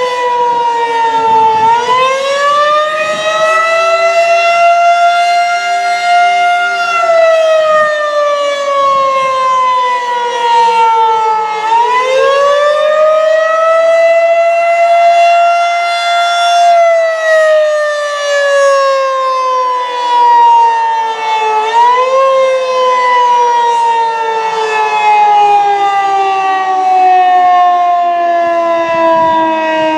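Federal Signal 2001-130 rotating electromechanical warning siren sounding a steady Alert tone. Its pitch climbs and holds twice, sagging slowly in between, then after a short lift about two-thirds of the way through it falls steadily lower to the end.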